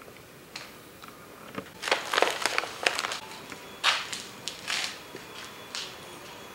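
A string of irregular crunching, crinkling noises in short bursts, loudest about two seconds in and again around four seconds in.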